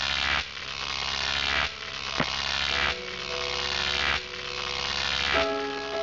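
Electronic intro sting: buzzy, hissing synth swells over a low hum, each building and cutting off about every second and a quarter. Held synth tones enter midway, and chime-like notes begin near the end.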